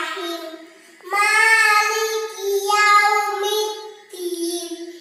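A young girl chanting Arabic prayer recitation in a sing-song melody, with long held notes. There is a short pause about half a second in and another just after four seconds.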